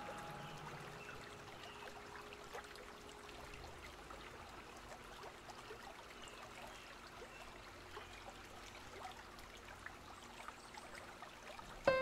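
Faint water trickling and lapping, with many small drips and splashes. Near the end a held chord of music comes in suddenly.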